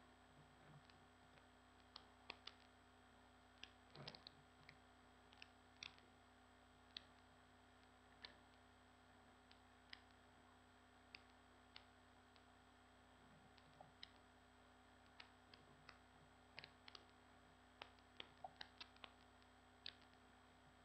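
Near silence: a faint steady hum, broken by scattered, irregular clicks of a computer keyboard and mouse, now single, now in quick little runs.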